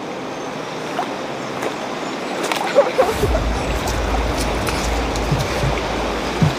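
Steady rush of a flowing river. From about three seconds in, wind buffets the microphone with a low rumble, and there are a few light knocks.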